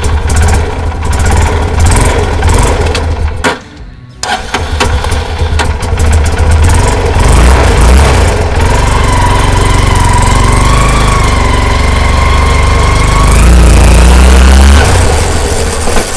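Hero Karizma R motorcycle's 223 cc single-cylinder engine running on a test ride after its chain guard was tightened to stop a rattle. The sound breaks off briefly about four seconds in, then runs steadily with a slowly rising whine, and revs up near the end before easing.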